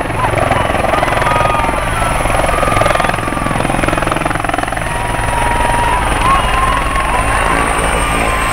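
Helicopter main rotor beating with a fast, steady chop as the helicopter comes down to land, with its turbine running.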